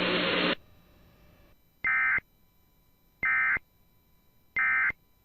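Emergency Alert System end-of-message data bursts: three identical short, shrill digital chirps about 1.4 seconds apart, signalling the end of the alert. Before them, radio hiss with a low hum cuts off about half a second in.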